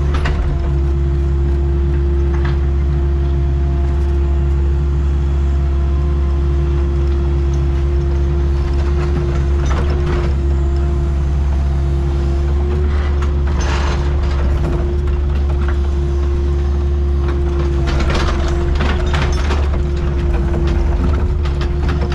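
Excavator's diesel engine and hydraulics running steadily, with a constant whine over the low engine hum. Short spells of metallic rattling and clatter come through several times, most strongly in the second half.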